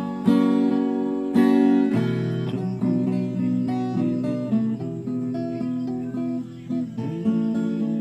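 Acoustic guitar strummed in a run of chords, changing about every second, with two strong strums near the start.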